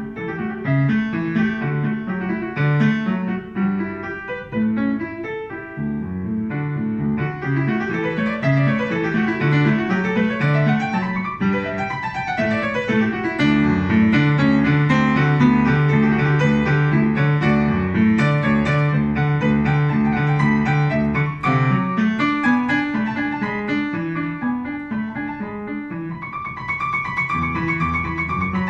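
Upright piano played solo: a steady pattern of repeated low notes under melody, with quick runs that sweep up and back down a couple of times.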